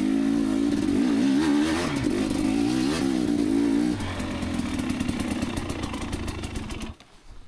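Two-stroke dirt bike engine under the rider, its revs rising and falling unevenly through the first few seconds, then running lower and steadier. The sound cuts off suddenly about seven seconds in.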